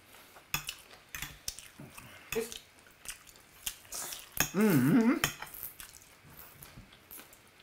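Metal forks clicking and scraping against ceramic dinner plates as spaghetti is twirled and eaten, in scattered light clinks. About four and a half seconds in, a short wavering vocal hum is the loudest sound.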